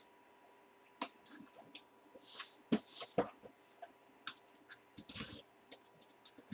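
A sealed cardboard mystery box being handled and opened: scattered knocks and clicks with several short bursts of rustling packaging, the longest about two to three seconds in.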